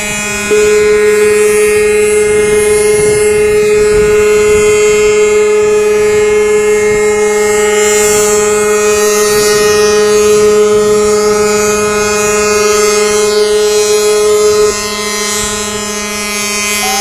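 A ship's horn gives one long steady blast, starting about half a second in and cutting off about three seconds before the end. Other ships' horns keep up a chord of steady tones underneath, and a rising siren sweep returns near the end.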